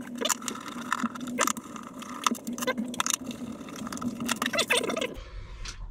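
Anchor windlass solenoid box being opened by hand: a run of small clicks, knocks and light metallic rattles and scrapes over a faint steady hum.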